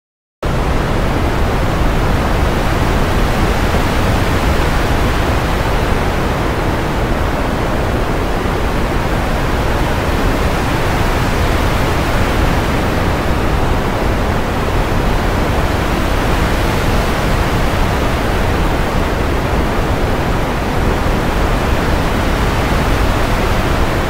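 Synthesized ocean-wave sound effect played back: a continuous rush of noise with a heavy low end, starting about half a second in. It has been passed through a stereo widener and its lows have just been pulled down.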